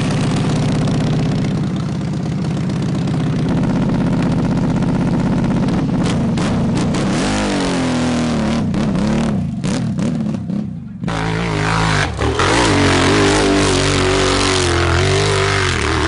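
Motorcycle engine running after being spun into life with a chainsaw, revved in rising and falling swells, with a brief sharp break about eleven seconds in before it runs on.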